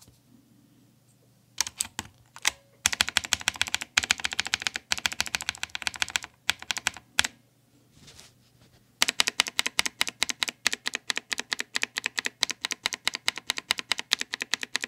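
Mechanical keyboard with blue switches lubed with Vaseline and a drop of machine oil, typed on fast. A few single keystrokes come in about 1.5 s in, then a quick run of clicks, a pause of a couple of seconds, and steady rapid typing from about 9 s on. No crackle is heard in the switches.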